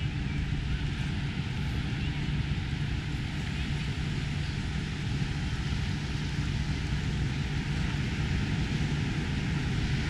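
Steady outdoor beach ambience: ocean surf washing in and wind on the microphone, a continuous low rumble and hiss with no distinct events.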